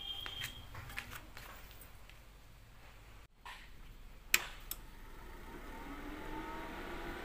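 A sharp click as the ARC 200 inverter arc welder is switched on, then its cooling fan starts up, running with a hum that rises slightly in pitch and grows steadily louder. A few light clicks come before it.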